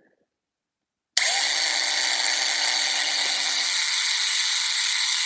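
Electric drill starting suddenly about a second in and running steadily, boring a hole through a painted wooden car card box.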